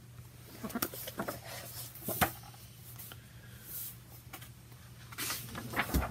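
Handling of a picture book as it is lowered: soft paper rustles and light knocks, the sharpest about two seconds in and a few more near the end, over a faint steady hum.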